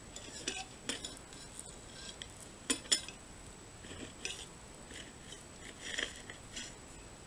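Table knife sawing through a puff-pastry custard slice, with a fork holding it on a ceramic plate: scattered faint clicks and scrapes of cutlery against the plate, with two sharper clicks about three seconds in.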